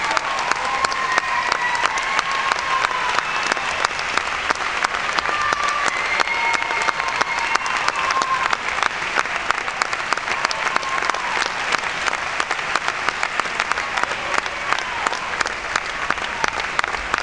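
Theatre audience applauding: dense, steady clapping from many hands, with a few voices calling out over it in the first half.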